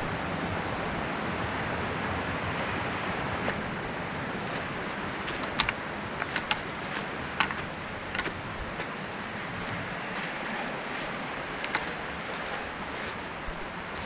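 Steady rushing of a mountain stream, with a scattering of short sharp crackles from footsteps on dry leaves and stones, mostly in the middle.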